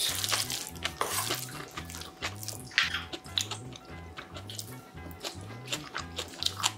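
Soft background music with a steady, repeating bass line. Over it are close eating sounds: chewing, and sharp clicks of a spoon and chopsticks against a metal bowl and plates.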